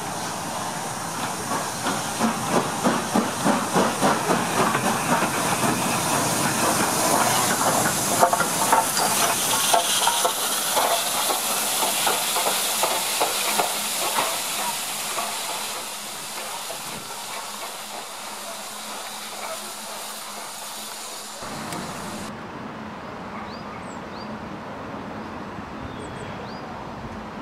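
Steam locomotive working under steam, with strong exhaust beats at about three a second over a loud steam hiss. The beats blur into the hiss and fade after about fifteen seconds. Near the end the sound turns quieter, with a few bird chirps.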